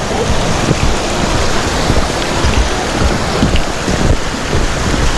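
Steady, loud rush of a flowing mountain river beneath a footbridge.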